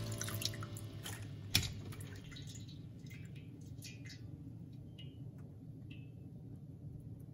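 Water dripping from a plastic colander of freshly washed water spinach as it drains over a sink. The drips are faint and scattered, with a single knock about one and a half seconds in.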